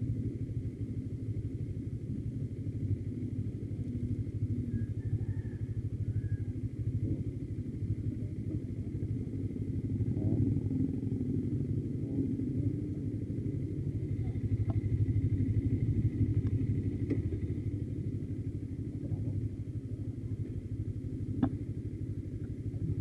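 CFMoto NK motorcycle engine idling, a steady low pulsing rumble, with a single sharp click near the end.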